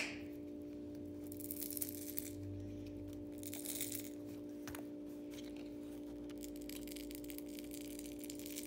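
Faint scraping and rustling of fingers working the battery of an opened Huawei Honor 5X phone, beginning with a sharp click, over a steady hum.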